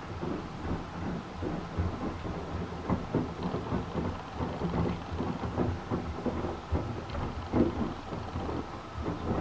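Beko WYAW 714831 LS washing machine running a wash, its drum turning wet laundry with an irregular patter of sloshing and soft knocks.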